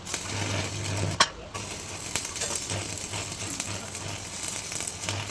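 Electric arc welding: a continuous sizzling crackle from the arc, with a low hum from the welding machine coming and going. A single sharp knock sounds about a second in.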